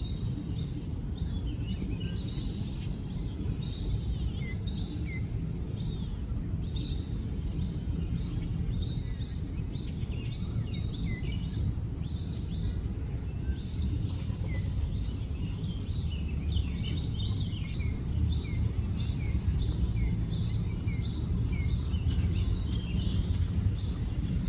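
Small birds chirping, with a run of about eight evenly spaced, repeated chirps roughly two-thirds of the way in, over a steady low rumble.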